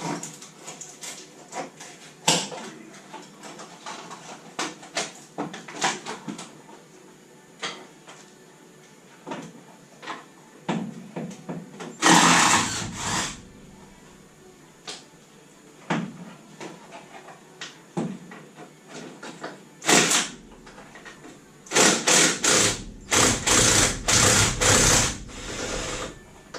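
Hand tools clinking and clanking against metal. Short bursts of a power tool come about halfway through, again later, and as a run of several near the end.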